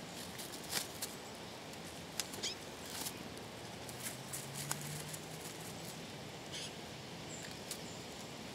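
Scattered light clicks and scratches, mostly in the first three seconds, from small rodents feeding at a feeder, over a steady outdoor hiss. A faint low hum comes in around the middle, and a short high peep sounds near the end.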